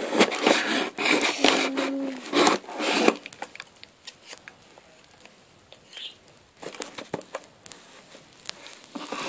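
Cardboard shipping box being handled and opened, with crackling and tearing of cardboard and tape through the first three seconds, then only scattered light clicks and rustles.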